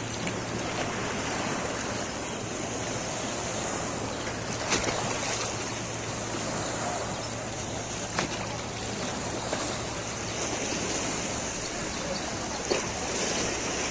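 Small lake waves lapping and splashing on a rocky shoreline, a steady wash of water sound, with people's voices in the background and a few faint clicks.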